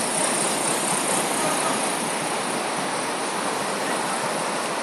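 Steady rushing of the flood-swollen Passaic River flowing fast.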